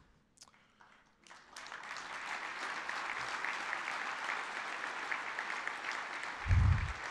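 Audience applauding. It starts about a second in and holds steady, with a short low thump near the end.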